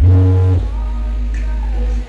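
Loud music from a parade sound system, dominated by long held, very deep bass notes, the strongest in the first half second.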